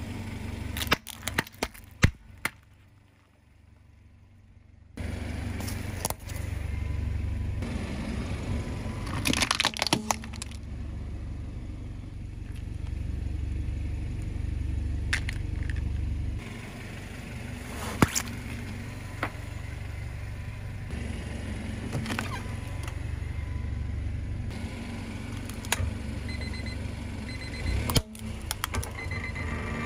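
Car engine idling low and steady while its tyre rolls over small plastic objects, with sharp cracks and crunches every few seconds as they break. Near the end a small alarm clock beeps in quick repeated runs.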